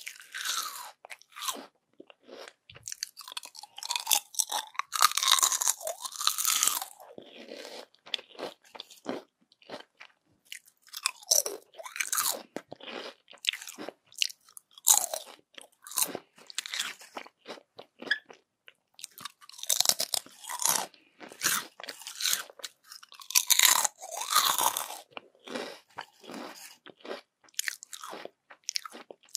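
Close-miked crunching and chewing of crispy yam chips, in bursts of crackling bites every few seconds with quieter pauses of chewing between.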